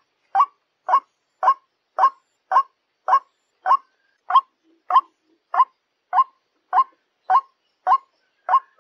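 White-breasted waterhen (ruak-ruak) giving its attracting call, the call played to lure waterhens in. Short single notes repeat at a steady pace, nearly two a second.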